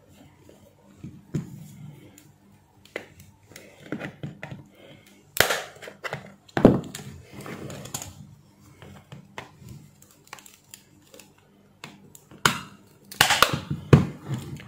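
Screwdrivers prying open the clipped plastic case of a Sony PS2 AC adapter: irregular sharp plastic clicks and snaps, loudest in a cluster about five to seven seconds in and another near the end.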